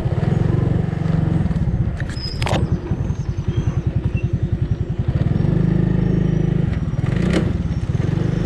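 Small motorbike engine running, heard from the seat while riding. About two and a half seconds in it drops to slow, separate pulses as the throttle eases, then picks up steadily again about five seconds in. A short high squeak comes a little after two seconds in.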